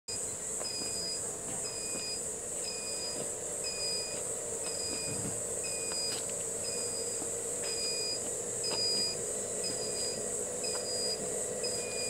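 Forest ambience with a steady high insect drone, likely crickets or other autumn insects. A short high note repeats about once a second over it, with a faint low steady hum underneath.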